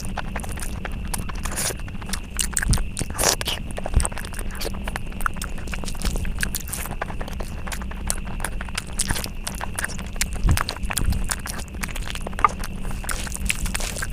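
Close-miked eating: a person chewing and biting, with many small wet clicks and crackles and a few sharper crunches, over a faint steady hum.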